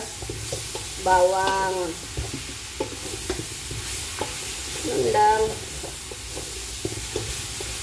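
Saluyot (jute) leaves sizzling as they sauté with coriander and garlic in a large steel pot. A wooden spoon stirs them, with scattered knocks and scrapes against the pot.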